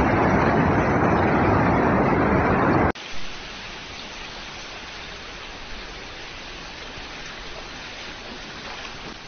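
Steady rushing of a swollen, fast-flowing flooded river. It is loud at first, and about three seconds in it cuts off suddenly to a quieter, brighter, even hiss.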